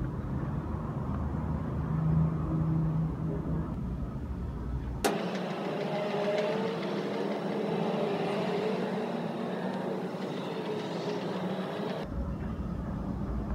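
Outdoor street background with a steady low engine rumble of traffic. About five seconds in, a click and a cut lead to a hissier stretch without the rumble, with faint wavering tones. The rumble returns near the end.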